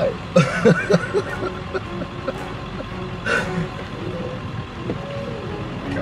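Truck engine running steadily, heard from inside the cab, with a voice briefly in the first second and a short sharp noise about three seconds in.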